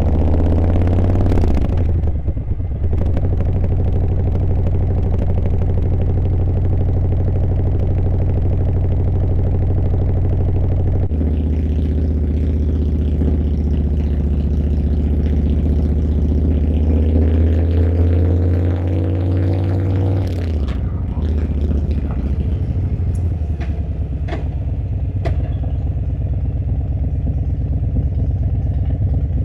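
Harley-Davidson V-twin motorcycle engine running on the move. It shifts at about two seconds and again about eleven seconds in, rises in pitch as it accelerates, then drops back to a lower, steady run from about twenty seconds in, with a few sharp ticks late on.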